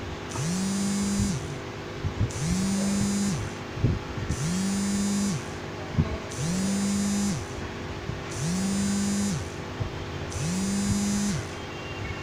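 Hot-air rework gun heating a motherboard MOSFET so it can be lifted off: its blower whirs in regular pulses about every two seconds, each one speeding up, holding for about a second and slowing down, over a faint steady hum.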